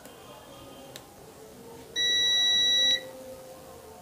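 A single electronic beep, one steady high tone held for about a second, starting about halfway through, with a faint click shortly before it.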